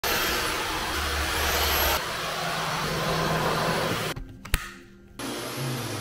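Dyson V15 Detect cordless stick vacuum running with a steady rush of air, in short clips that change abruptly about two seconds in. The sound drops away about four seconds in, with a single sharp click, then the vacuum runs again near the end.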